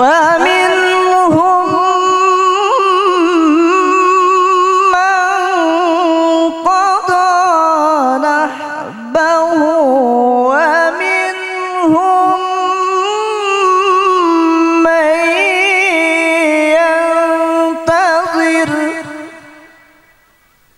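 A male Quran reciter chanting a long, ornamented melodic phrase into a microphone, with wavering held notes and a few short breaks for breath. The voice fades out near the end.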